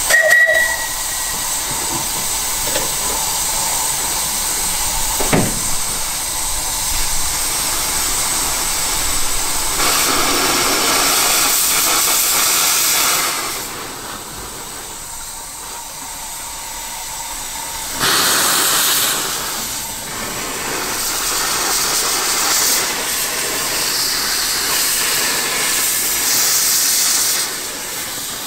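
Steady steam hiss from a 12-inch gauge 0-4-2 tank steam locomotive in steam. The hiss drops away for a few seconds about halfway through and comes back suddenly. One knock sounds about five seconds in.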